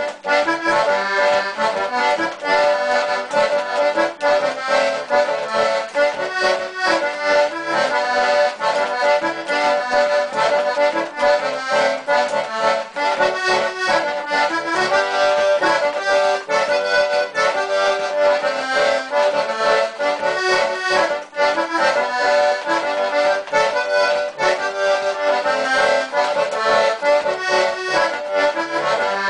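Diatonic button accordion played solo: a traditional tune with quick-changing melody notes over a steady held tone.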